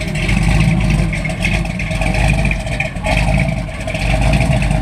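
First-generation Chevrolet Camaro's LS V8 running at low revs as the car pulls slowly away.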